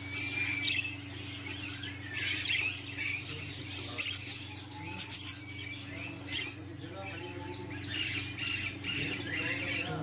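Budgerigars chattering and squawking in a cage, many short warbling chirps one after another. A few sharp clicks come about five seconds in, over a steady low hum.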